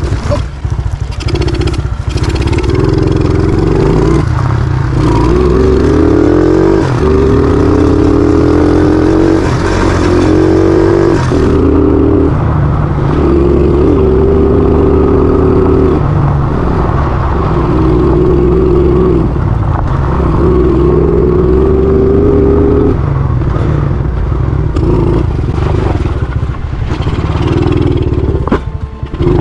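Motorbike engine revving in about a dozen surges of one to three seconds each, several rising in pitch, with short drops in between as the throttle is opened and closed.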